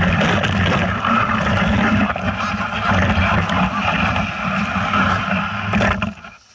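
A vehicle engine running while moving, under heavy rushing noise. It cuts off abruptly near the end.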